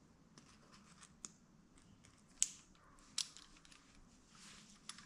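Faint handling of parts while a coil spring and its retainer are fitted onto a Fox DHX2 coil shock: scattered light clicks, two sharper ones about two and a half and three seconds in, and a soft scrape near the end.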